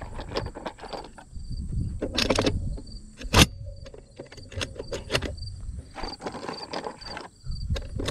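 Insects chirping in steady high-pitched pulses, over irregular rustling and knocks from handling, with one sharp loud knock about three and a half seconds in.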